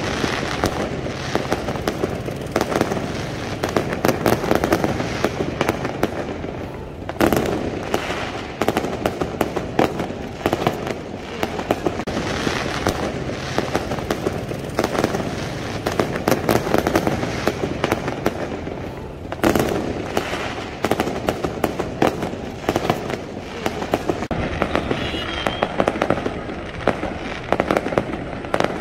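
A dense, unbroken barrage of aerial fireworks: rapid crackling and popping overlapping without pause, with sharp loud bangs about seven seconds in and again about twenty seconds in.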